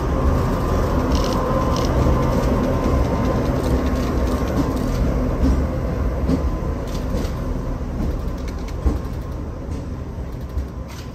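Train hauled by Siemens ER20 diesel-electric locomotives passing, with a steady diesel hum and rumble and a few short clicks. It fades slowly near the end.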